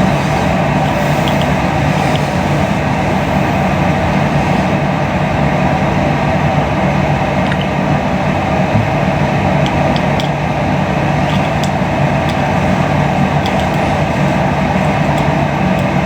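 Steady, even rumbling noise with a low hum, unchanging throughout, with a few faint ticks and no rhythm of breathing.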